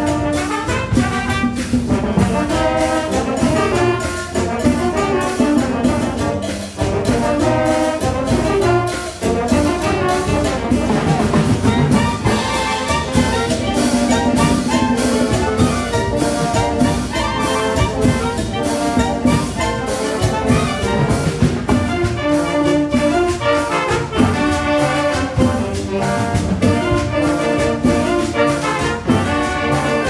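Live wind band playing: trumpets, tubas and other brass carry the tune over clarinets and saxophones, with a steady percussion beat from timbales, güiro and maracas.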